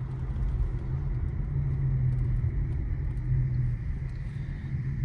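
Infiniti Q50 3.0t's twin-turbo V6 and tyre noise heard from inside the cabin as the car slows down: a steady low hum over a road rumble.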